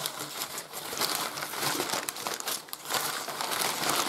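Brown packing paper being crumpled and rustled by hand while unwrapping, a dense crinkling crackle that starts suddenly.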